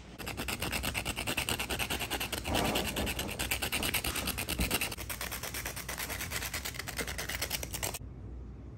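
A Milk-Bone dog biscuit is grated on a flat metal hand grater, scraped in quick, even strokes that stop shortly before the end.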